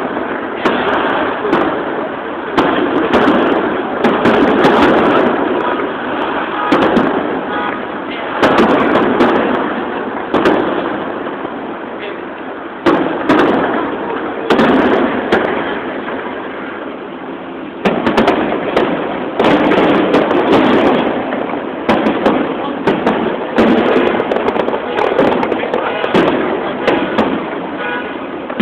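Fireworks display going off in a steady series, with a sharp bang every second or two over the voices of a crowd.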